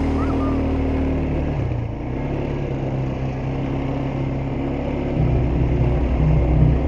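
ATV engine running, its note easing down about a second and a half in and picking up again, louder, about five seconds in.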